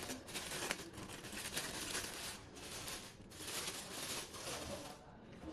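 Clear plastic bag rustling and crinkling as it is worked off a stereo microscope head, in uneven stretches that die away near the end.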